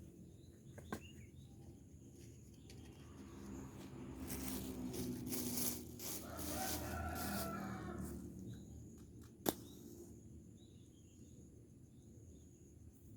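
A rooster crowing: one long call lasting several seconds in the middle, over a low steady hum, followed by a single sharp click.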